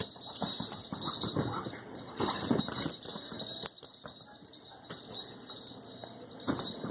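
A small bell jingling in short, irregular shakes.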